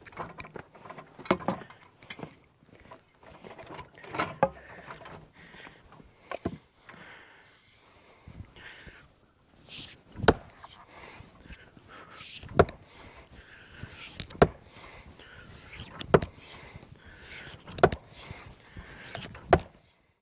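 Hammer blows on the top of a large wooden fence post, a string of sharp knocks: a few irregular ones at first, then one about every two seconds in the second half.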